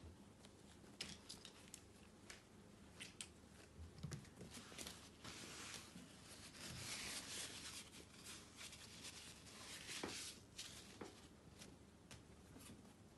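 Faint crinkling of a crumpled paper ball being handled for a few seconds around the middle. Scattered light ticks and taps of a kitten's paws and the paper ball on a wooden floor run throughout, with one sharper click about ten seconds in.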